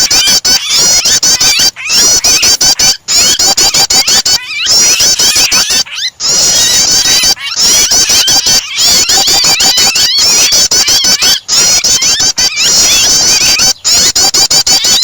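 Prenjak (prinia) calls mixed with the distress cries of trapped birds, played as a bird-training starter track. Dense, high-pitched, rapidly repeated chattering notes come in stretches separated by brief breaks every second or two.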